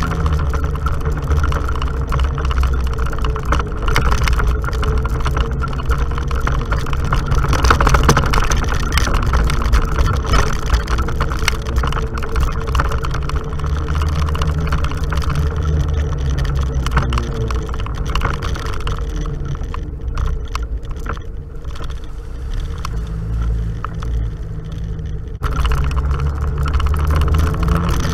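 Off-road vehicle engine running steadily as it drives along a rough dirt trail, with bumps and rattles picked up through the action camera's mount. Near the end the sound drops off for a few seconds, then comes back abruptly.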